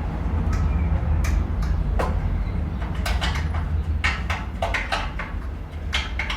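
A generator engine running with a steady low rumble, under a series of sharp clicks and knocks.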